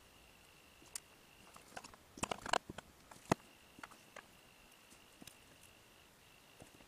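Small clicks and taps of hands handling a metal connector pin, a cable and tools on a workbench, with a quick run of clicks about two seconds in and one sharp click a little after three seconds.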